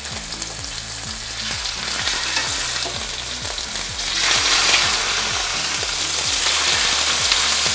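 Chicken breast pieces sizzling in hot coconut oil in a stainless steel pan as they are laid in with tongs. The sizzle grows louder about four seconds in, as another piece goes into the oil.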